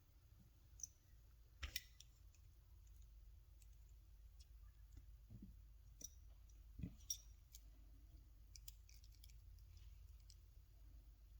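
Faint, scattered small clicks and taps as tiny screws are handled and driven back into a plastic key fob shell. The clicks come singly and irregularly, with a couple of louder ones around the second and seventh seconds.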